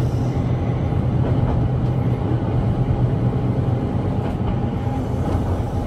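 Keihan 800 series electric train running along the track, heard from the driver's cab: a steady rumble of wheels on rail with an even hum through it.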